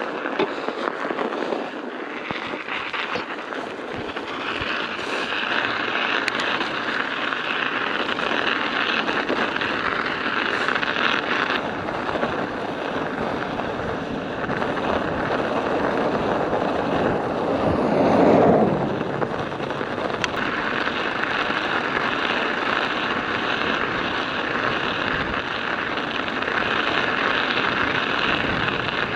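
Studded bicycle tyres rolling over an icy, rutted road: a steady clattering crunch of the studs on the ice. About two-thirds of the way through there is a brief louder rush.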